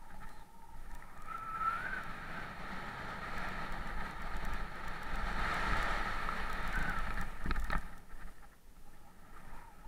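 Downhill mountain bike rolling fast down a dirt and loose-gravel trail: a steady noise of tyres on the rough surface with wind rumbling on the microphone, and a couple of sharp knocks from the bike hitting bumps about seven and a half seconds in.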